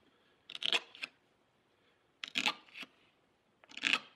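Hobby knife slicing through black tape over a cardboard edge: three short cuts about a second and a half apart.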